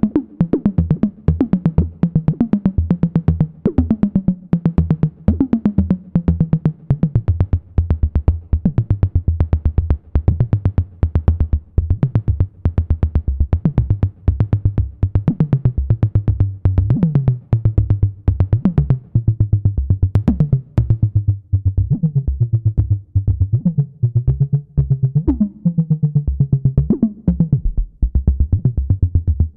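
Modular synthesizer patch sounding from the ST Modular Boba Fett module: a fast, even pulse of short sequenced notes over a low bass. Pitched tones swoop downward at the start of phrases every second or two.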